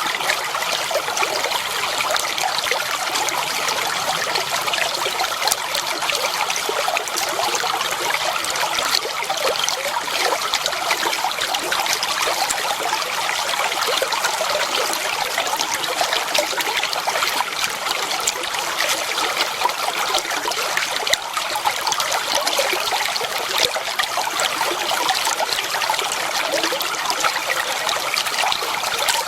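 Clear water flowing and trickling steadily, a dense bubbling splash.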